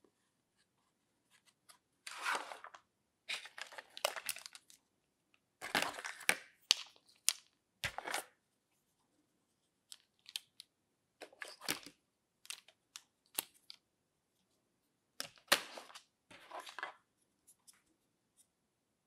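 Hard plastic toy kitchen pieces handled and knocked together. Scattered clicks, taps and short scraping, rustling noises come in irregular bursts with short pauses between them.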